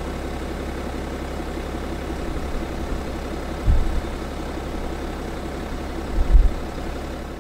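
BMW 530d's 3.0-litre straight-six diesel idling steadily, heard through the open driver's door. Two brief low bumps come about halfway and near the end.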